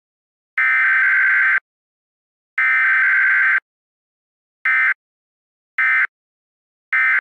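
Emergency Alert System SAME data bursts, a raspy two-tone digital screech. Two long header bursts of about a second each, a second apart, are followed by three short end-of-message bursts about a second apart.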